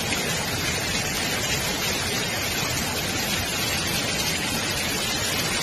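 Heavy rain and floodwater rushing down a street: a steady, unbroken wash of water noise.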